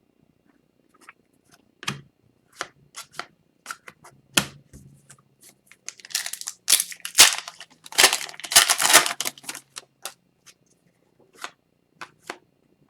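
Trading cards handled with scattered clicks, then a foil card-pack wrapper crinkling and tearing for about three seconds past the middle.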